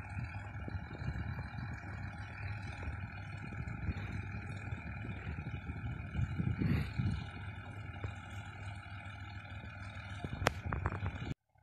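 Farm tractor engine running steadily under load as it pulls a tillage implement through ploughed soil, with a low rumble and a steady whine. A sharp click sounds near the end, and the sound cuts off suddenly just before the end.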